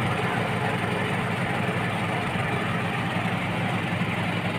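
Small wooden passenger boat's engine running steadily under way, an even low drone with a steady hiss over it.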